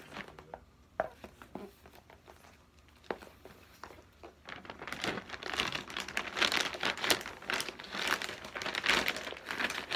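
Plastic packaging crinkling as it is handled: a few scattered rustles and taps at first, then steady, dense crinkling from about halfway.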